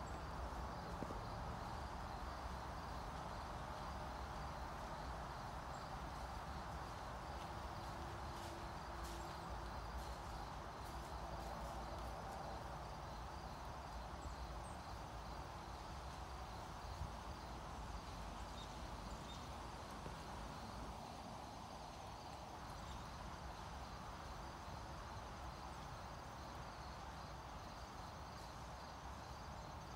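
Insects chirping in a steady, rapid pulsing chorus over faint, even background noise with a low rumble.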